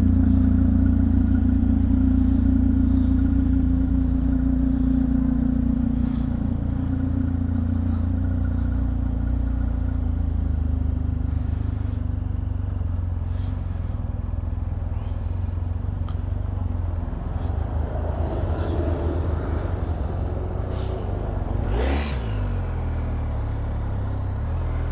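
Motorcycle engine pulling away and riding through city streets, a steady low drone that runs through the upshifts.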